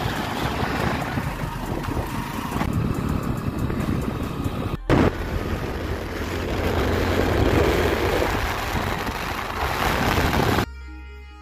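Wind rushing on the microphone with engine and road noise from a moving vehicle. It drops out briefly about five seconds in, and near the end it cuts off and background music takes over.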